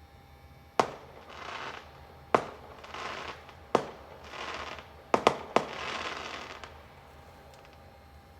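Fireworks going off: six sharp bangs, each followed by a trailing crackle of about a second. The last three bangs come close together about five seconds in.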